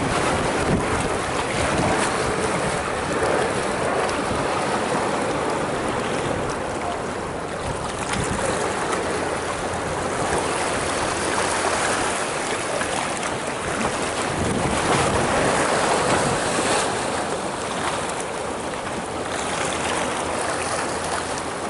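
Small waves washing and splashing against rocky shoreline boulders, with wind buffeting the microphone.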